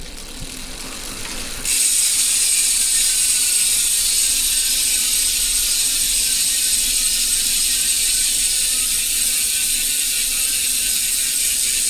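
Stan's NoTubes 3.30 freehub buzzing as the wheel coasts. The fast ratcheting buzz comes in suddenly about a second and a half in and runs on steadily, its pitch falling slowly as the wheel slows.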